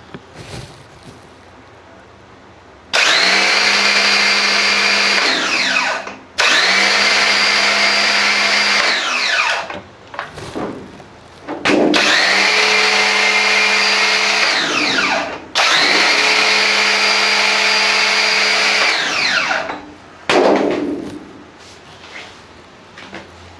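Bosch electric pressure washer's motor and pump running in four bursts of about three to four seconds, each starting abruptly and winding down with a falling whine, then a brief final burst. It is a test run after an oil-leak repair.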